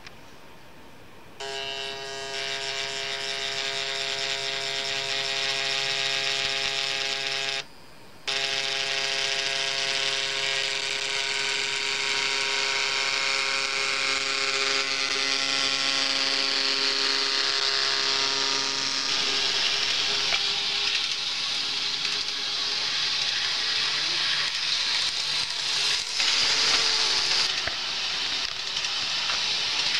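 Small electric motor of an N-gauge model DB Class 426 multiple unit running with a steady, even-pitched hum that cuts out briefly about eight seconds in. A hiss grows stronger through the second half.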